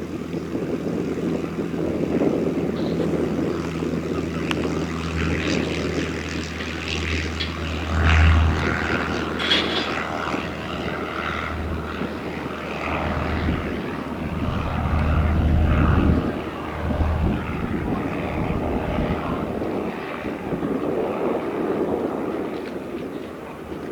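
Light propeller aircraft's piston engine running with a steady drone, swelling louder about eight seconds in and again around fifteen to seventeen seconds in.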